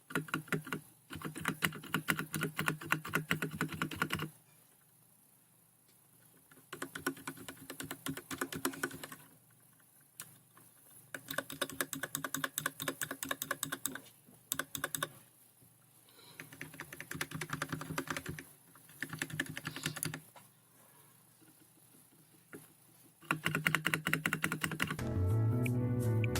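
Typing on a Royal Kludge RK100 mechanical keyboard with linear red switches: five runs of fast key clacks, each a few seconds long, with short pauses between them.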